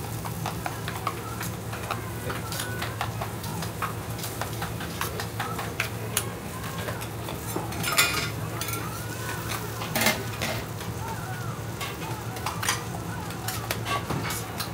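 Yakisoba noodles sizzling on a flat-top iron griddle, with frequent sharp clinks of metal spatulas and a spoon against the griddle and a metal bowl; the loudest clinks come about eight and ten seconds in. Near the end, a spoon stirring in a metal bowl.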